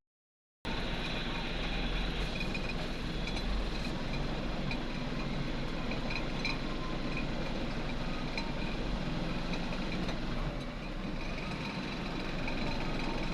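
Heavy diesel earth-moving machinery running steadily, a low engine rumble with faint clicks and clanks. The sound drops out to silence for about half a second at the very start.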